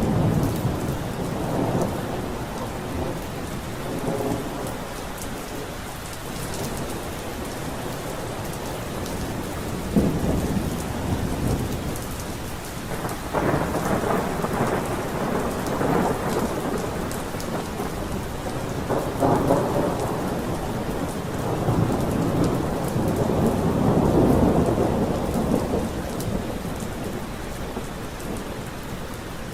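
Steady rain falling, with rolling thunder rumbling again and again; the longest, loudest roll swells in the last third and fades near the end.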